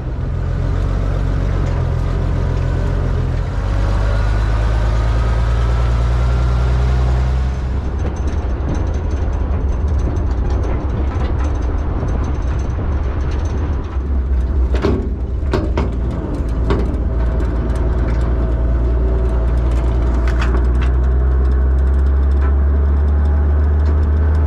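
Army wrecker truck's GMC 270 inline-six engine running as the truck is driven, a steady low rumble. A whine rises in pitch over the first several seconds as it gathers speed, and a few sharp knocks come partway through.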